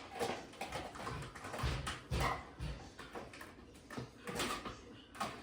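Dishes and plastic tableware knocking and clattering as they are set into a dishwasher's racks, in irregular knocks.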